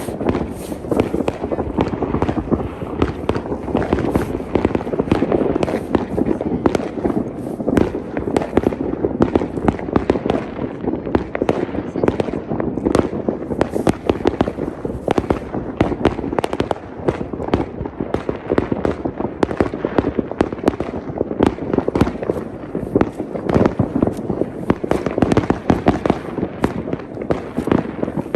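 Many fireworks and firecrackers going off at once: a dense, continuous crackle of overlapping bangs with no pause.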